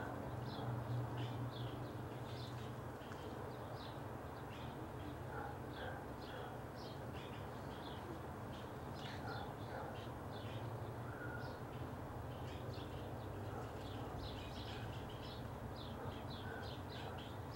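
Small birds chirping in short, quick notes over a steady low hum.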